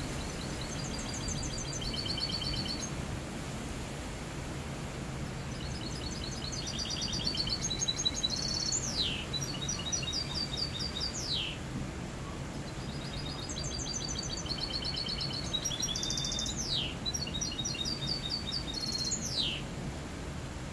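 Caged mixto, a canary-cross hybrid finch, singing its clean song: bouts of rapid high trills and rattling phrases broken by quick downward-sweeping notes, about a second in, again from about six to twelve seconds, and from about fourteen to twenty seconds. A steady low background noise runs underneath.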